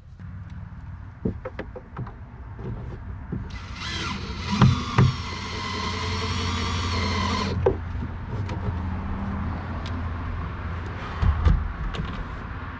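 Cordless drill running for about four seconds, driving a screw to fasten a boat seat's base, with a few sharp knocks of the tool and fittings during the run and again near the end.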